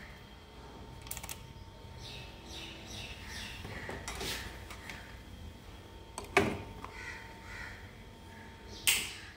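Bird calls in the background, caw-like, with a few sharp clicks or knocks: the loudest about six seconds in and another near the end.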